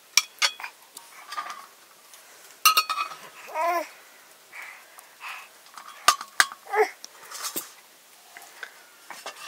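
A metal ladle clinking and scraping against an aluminium bowl and a steel plate as cooked rice is served out, in a string of sharp clinks. A few short rising-and-falling voice-like calls come in between, about three to four seconds in and again near seven seconds.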